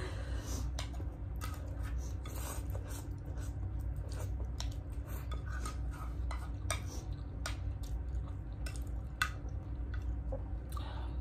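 Cutlery clinking and scraping on plates during fast eating: many short, irregular clicks, over a steady low hum.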